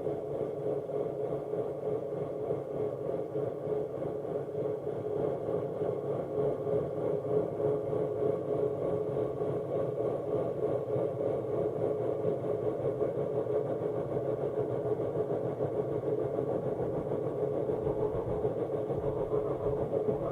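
Sustained electronic synth drone holding one steady tone over a low hum, with no beat; near the end, rising and falling pitch sweeps begin to arc over it.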